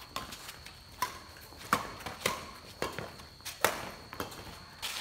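Badminton rally: rackets striking the shuttlecock and players' shoes slapping and scuffing on a concrete court, as sharp irregular clicks every half second to a second.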